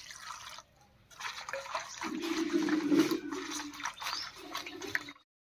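Water poured from a jug into a steel bowl of taro flowers, then splashing and sloshing as a hand swishes them clean. The sound stops briefly about half a second in and cuts off abruptly near the end.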